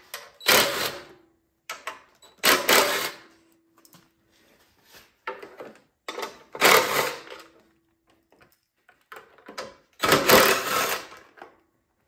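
Cordless power driver run in four short bursts a few seconds apart, taking out fasteners to strip a cover off a snowblower. A faint steady hum trails after most bursts.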